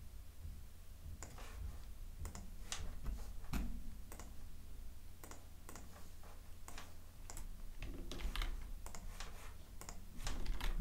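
Irregular clicks and keystrokes from a computer keyboard and mouse, a few to several a second, over a low steady hum.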